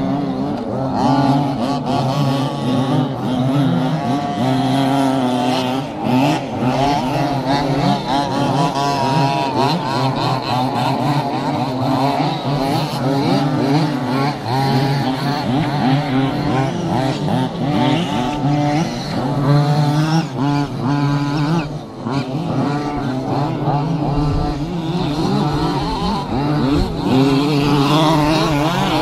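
Several 1/5-scale petrol RC off-road trucks racing, their small two-stroke engines buzzing and revving over each other, the pitch rising and falling constantly as they accelerate and back off.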